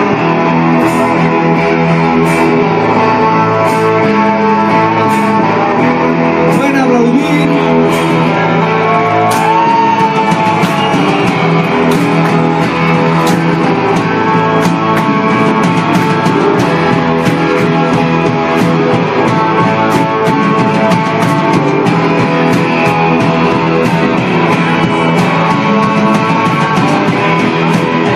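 Rock band playing: electric guitars over drums with a steady beat.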